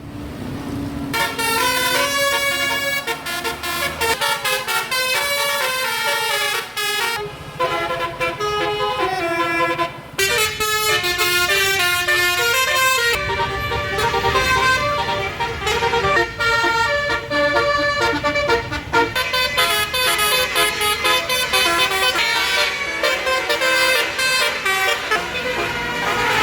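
Tour bus's basuri 'telolet' multi-tone horn playing a quick melody of short notes without a break, over a low rumble.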